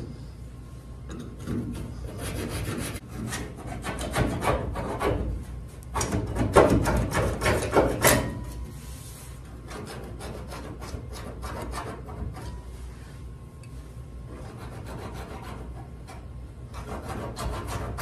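Coarse wood-cutting reciprocating-saw blade, held in locking pliers and worked back and forth by hand in a door gap, rasping through hardened glue built up between the door edge and the body panel. Irregular scraping strokes, loudest about six to eight seconds in, then lighter.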